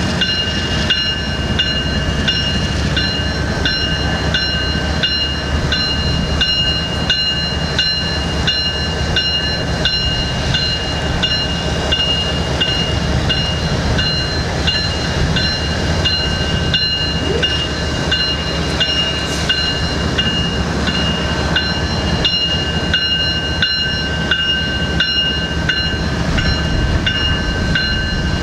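Railroad grade-crossing bell ringing steadily at about two strokes a second, over a low steady rumble of train noise.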